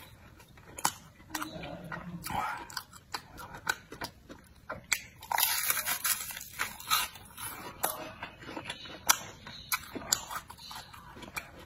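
Close-up eating sounds: crunchy bites into deep-fried fritters, then chewing. Many sharp crackles and clicks come through, thickest about five to seven seconds in.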